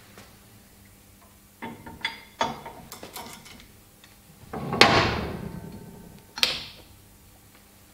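Metal parts being handled and set up in a bench hydraulic press: light clicks and knocks, then a loud clank that rings on and fades over about a second, and a second sharper clank a moment later.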